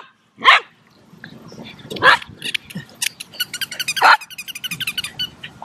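Cavalier King Charles spaniel barking during play with its owner, three short barks about two seconds apart, with quick light clicking in between.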